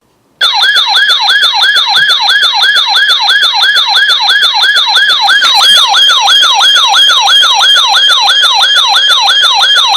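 Electronic siren sounding a fast yelp: loud, rapid pitch sweeps, about three a second, starting half a second in after a brief silence.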